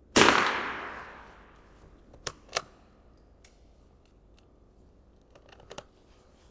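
.22 LR rifle firing a single shot of cheap club-grade ammunition, a sharp crack with an echo that fades over about a second. About two seconds later come two sharp metallic clicks, and a few fainter clicks near the end.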